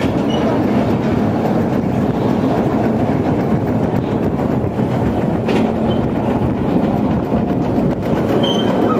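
Insane roller coaster car rumbling and clattering steadily on its track as it climbs.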